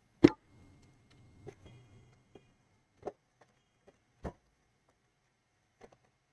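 Handling knocks from a plastic LCD monitor case being lifted and laid face down on a workbench. One sharp knock comes just after the start, followed by four or five lighter taps spaced about a second apart.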